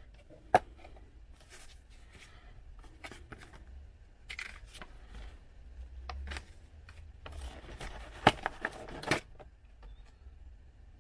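Unpacking noise: a cardboard box, a foam packing insert and a paper manual being handled, rustling and scraping, with a few sharp clicks and knocks, one about half a second in and two near the end.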